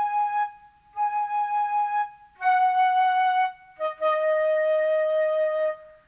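A flute playing a slow solo of held notes that step down in pitch. It plays three shorter notes, then a final note held for about two seconds.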